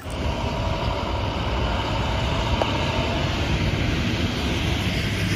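A yellow school bus drives by, its engine running under a steady rumble of road noise.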